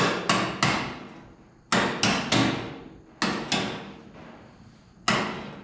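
Hand hammer striking the welded-in steel patch on a 1927 Ford cowl: sharp metallic blows in quick groups, three, then three, then two, and a single blow near the end, each ringing briefly in the sheet metal.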